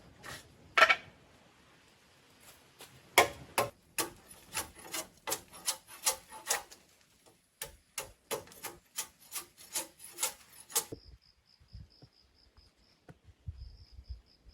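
Two sharp knocks, then a run of short rasping strokes on wood, about two or three a second with a brief pause, as wood is sawn or scraped by hand. The strokes stop about eleven seconds in, leaving a faint, high, pulsing chirp.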